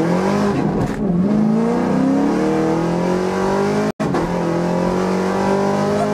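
Chevrolet Camaro 1LE with an AWE Track Edition exhaust accelerating at wide-open throttle, heard from inside the cabin: the engine revs up, drops in pitch at an upshift about a second in, then climbs again through the next gear. The sound cuts out for an instant about four seconds in.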